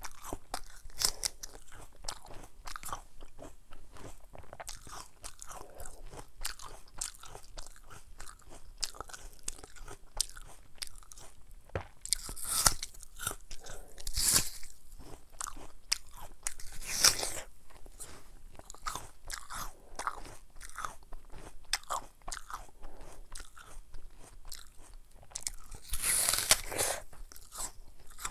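A raw apple being chewed close to a clip-on microphone: continuous crisp crunching and chewing. Louder crunches come about 12, 14 and 17 seconds in, and a longer loud one comes near the end.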